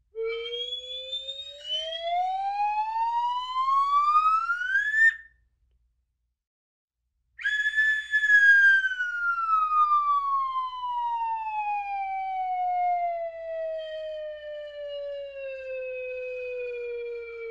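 A pitched, siren-like tone, likely an added sound effect, glides steadily upward for about five seconds and cuts off. After a silent gap of about two seconds it returns high and slides slowly down over about ten seconds.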